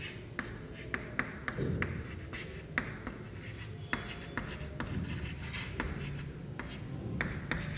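Chalk writing on a chalkboard: irregular quick taps and short scratches as letters are formed.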